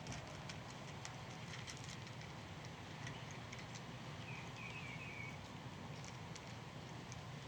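Quiet night ambience: a steady low hum with scattered faint ticks, and a quick run of four or five high chirps about four and a half seconds in.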